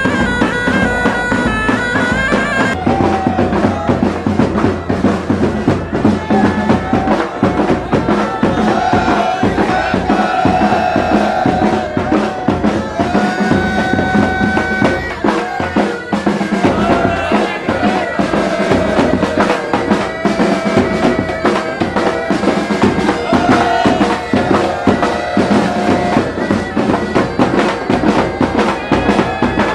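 Pipe band playing: bagpipes sounding a steady drone under a melody, with snare and bass drums beating a dense rhythm.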